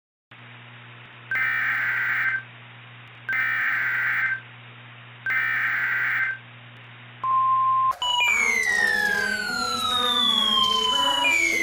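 Emergency Alert System SAME header: three one-second bursts of warbling data tones over a hissy, humming weather-radio channel. A short, steady NOAA Weather Radio alert tone follows, then about eight seconds in a cut to a repeating falling siren-like wail.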